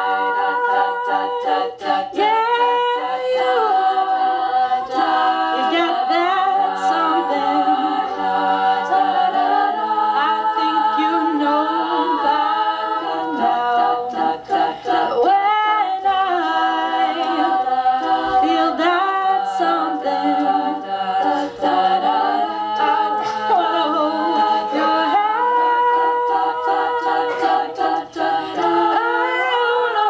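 A cappella vocal group singing unaccompanied, several voices in harmony holding long chords that shift slowly in pitch.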